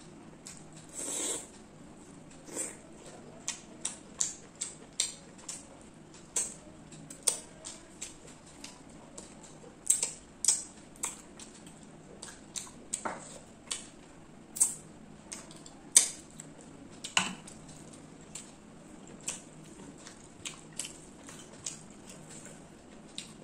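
Close-miked eating of chicken curry and rice by hand: wet mouth clicks and smacks from chewing, irregular, about one or two a second. Now and then fingers scrape on the plate while mixing the rice.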